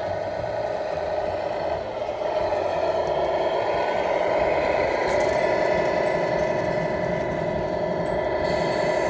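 Radio-controlled 1/14-scale tractor-trailer truck driving with a steady motor hum, getting louder about two seconds in as it comes toward and past the camera.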